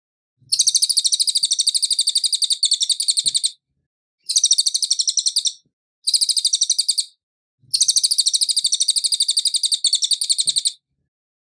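Cililin (crescent-chested babbler) singing: four loud, very fast high-pitched trills. The first, about three seconds long, starts about half a second in; two shorter trills follow; a last three-second trill ends near the end.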